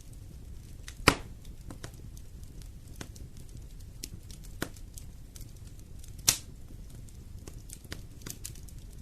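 Fire in a fireplace crackling over a low, steady rumble, with scattered small clicks and two loud sharp pops, one about a second in and one a little past six seconds.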